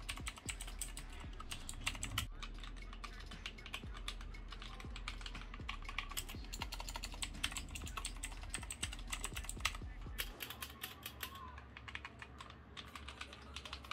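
Rapid, continuous typing on a Redragon Kumara mechanical keyboard fitted with tape and foam mods, its keys a mix of Akko Rose Red linear switches and the original clicky blue switches.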